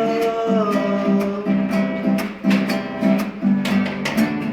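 Music: an acoustic guitar strummed in a steady rhythm, with a held note fading out in the first second.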